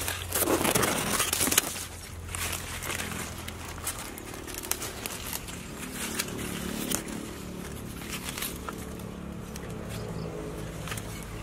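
Machete blade chopping and scraping into soil and roots, loudest for the first second and a half, then scattered scrapes, crackles and rustling as the root is dug out and handled. A steady low hum runs underneath.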